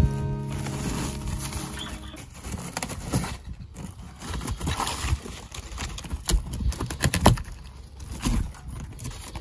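Rotted plywood and debris being picked apart by hand: irregular crumbling, crackling and scraping with a few sharper knocks, the loudest about six and seven seconds in.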